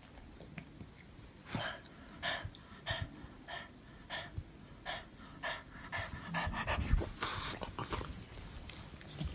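French bulldog panting in an even rhythm, about one and a half breaths a second. A louder stretch of rustling with a dull bump comes about seven seconds in.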